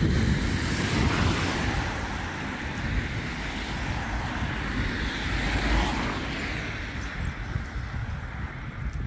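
Street traffic: cars passing, a broad rush of engine and tyre noise that swells about a second in and again around six seconds, then eases off.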